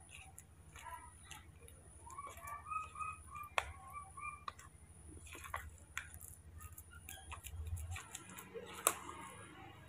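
Metal spoon clicking and scraping against a plastic bowl as banana is mashed into rice porridge, with two sharper clinks. About two seconds in comes a run of short, high chirping calls.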